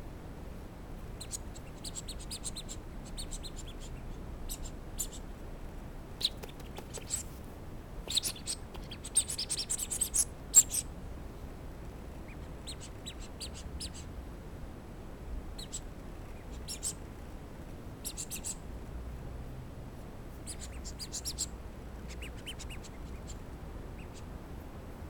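Papillon puppy giving short, high-pitched squeaks and whimpers in scattered bursts, most frequent about a third of the way through.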